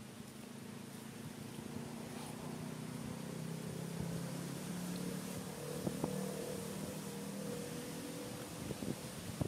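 A steady engine-like hum that slowly grows louder, with a few light clicks in the last few seconds.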